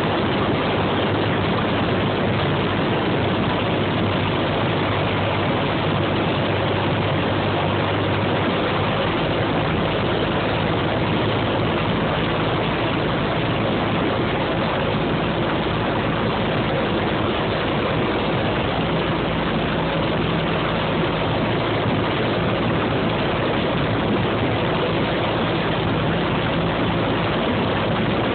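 Cabin noise of a single-engine high-wing light aircraft in flight: a steady drone of the piston engine and propeller mixed with rushing airflow, its low engine note shifting slightly about eight or nine seconds in.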